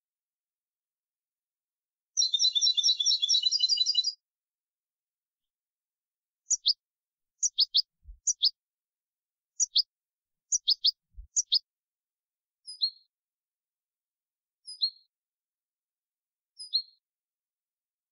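European goldfinch singing clean ('limpio') song: a fast, high trill about two seconds in, then a run of paired, quickly falling notes, then single short chirps about every two seconds.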